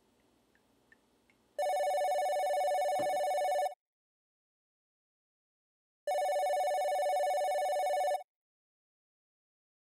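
A telephone ringing twice, a warbling electronic ring about two seconds long each time, with about two seconds of complete silence between the rings.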